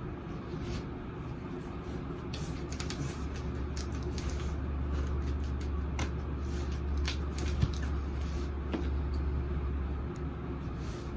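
Cardboard box and packing being handled and cut with scissors: scattered rustles and clicks over a low steady rumble that swells through the middle and drops away near the end.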